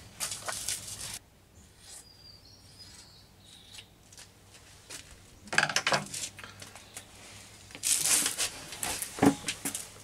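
Handling noises: fabric rustling and small clicks and knocks of sewing-machine parts being adjusted, in three spells of a second or two, over a steady low hum.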